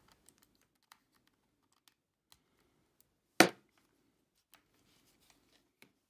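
Light clicks and rustles of a cable and a small Sony Cyber-shot DSC-W350 compact camera being handled, with one sharp click about three and a half seconds in as the cable's plug is pushed into the camera's connector port.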